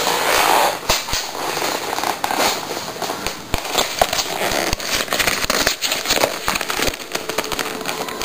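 Cardboard box and plastic packaging crackling and crinkling in a dense run of small clicks and rustles as the box of a new keyboard is opened.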